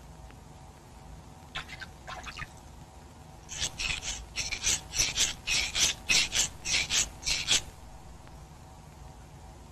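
Hands rubbing against stone at a pool's edge: a few faint strokes, then about a dozen louder short strokes, two or three a second, lasting about four seconds.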